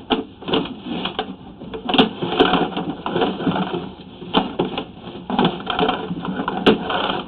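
Sewer inspection camera's push cable being pulled back by hand through the line, with irregular clicking and rattling.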